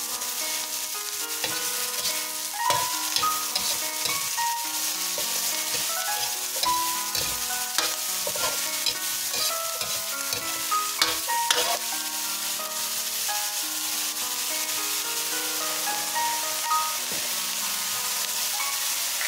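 Diced vegetables and mushrooms sizzling in hot oil in a wok, stirred with a metal ladle that scrapes and knocks against the pan now and then, with background music playing.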